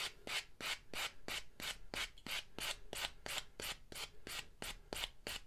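Hand sanding a 3D-printed plastic rangefinder part with a 3M foam sanding block. Quick, even back-and-forth rasping strokes, about four a second, as fine finish sanding smooths the part before priming.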